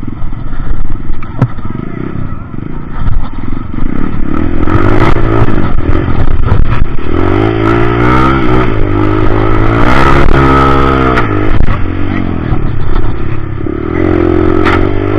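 Trail motorcycle engine running, then revved up and down several times from about halfway through, with knocks and clatter, as the bike struggles stuck in mud.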